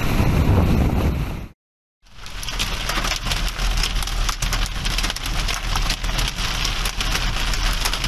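Hail and rain pelting a car's windscreen and roof, heard from inside the car: a dense patter of sharp ticks over a steady rush. It is preceded by wind buffeting the microphone, which cuts off abruptly about a second and a half in.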